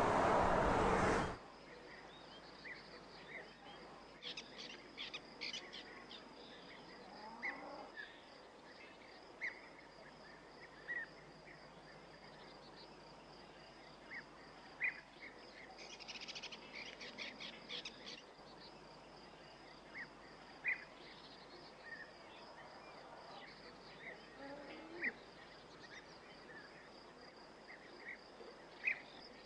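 Car driving noise cuts off abruptly about a second in. Faint outdoor ambience follows: scattered short bird chirps over a steady, high-pitched insect trill.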